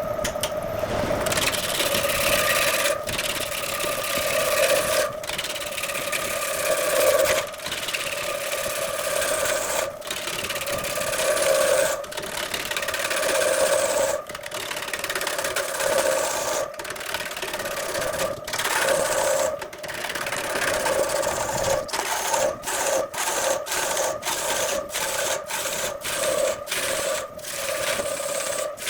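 A power tool's motor runs with a steady hum while a tool scrapes and rasps against wood. The sound is broken by brief dropouts every couple of seconds, which come much faster near the end.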